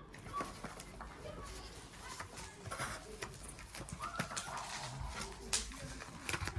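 Keys of a compact 60% keyboard being pressed, a run of irregular clicks and taps. Faint voices are in the background.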